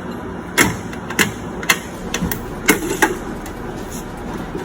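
Sharp clacks and knocks of tools and drawers being handled in a rolling tool chest, about five in the first three seconds, then only a steady background noise.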